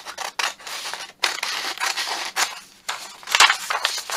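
Scissors snipping through a sheet of patterned paper, trimming a strip off its edge: a run of short, crisp cuts, several a second, with brief pauses as the blades reopen.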